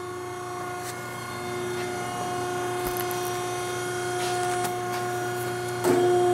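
The hydraulic pump motor of a Neff 5-ton C-frame hydraulic press running, a steady hum with a whine at one pitch and the octave above. Near the end a click, and the hum becomes louder as a control-panel button is pressed.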